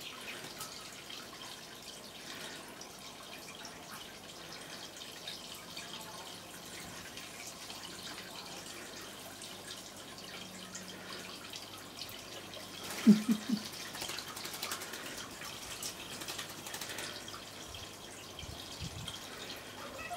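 Water trickling and splashing steadily as it spills from basin to basin of a stone cascade garden fountain. About two-thirds of the way through, a short cluster of sharp knocks is briefly the loudest sound.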